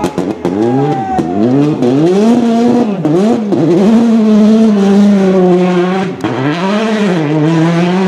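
Peugeot 208 rally car's engine revving hard while the car ploughs through soft mud in a field beside the stage. The revs rise and fall sharply over the first few seconds, with a few sharp cracks near the start, then hold high and steady, dip once about six seconds in and climb again.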